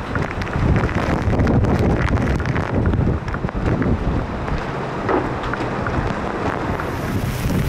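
Storm wind and heavy wind-driven rain, with strong gusts buffeting the microphone.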